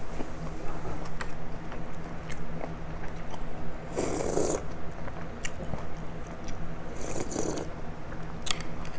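Someone eating pho: chewing and small clicks of chopsticks and spoon against the bowl, with two loud slurps of broth, about four and seven seconds in.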